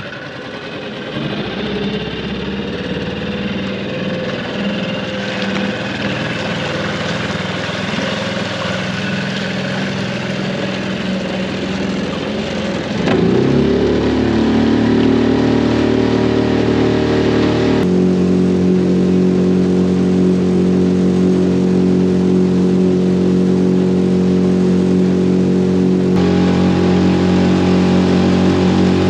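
Small outboard motor on an aluminium tinny running under way. It picks up revs in the first couple of seconds and gets louder and changes pitch about 13 seconds in, then runs steadily.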